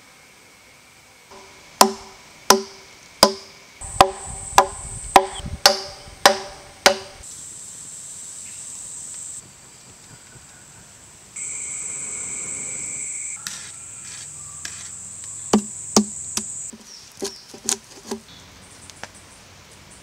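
Hafted ground-stone axe chopping wood: a run of about nine sharp blows roughly 0.6 s apart, then a few more near the end. Between them cicadas buzz high and steady, cutting in and out abruptly.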